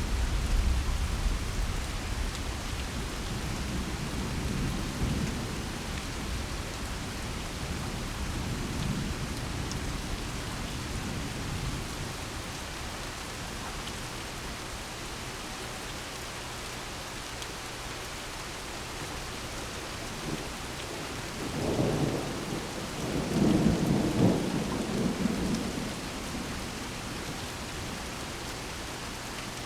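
Steady rain with rolling thunder: a low rumble that fades away over the first dozen seconds, then a louder thunder rumble building about two-thirds of the way through and dying away.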